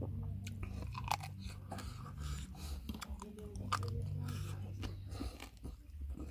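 A person chewing and biting food close to the microphone: wet crunching with many sharp clicks of the teeth and mouth, over a steady low hum.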